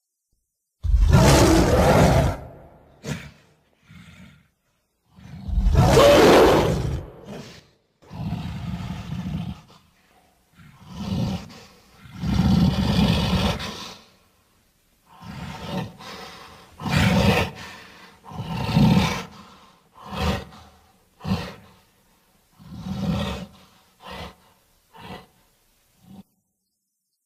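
A run of primitive ape sound effects: roughly fifteen separate roars and grunts, each lasting half a second to two seconds, with silence between them. The loudest roars come about a second in and about six seconds in.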